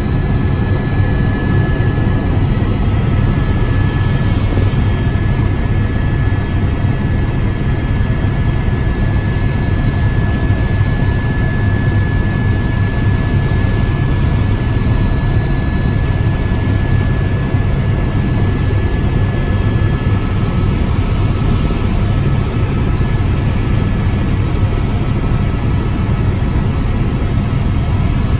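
Helicopter in steady cruise heard from inside the cabin: an unbroken deep drone of rotor and engine with a thin, constant high whine over it.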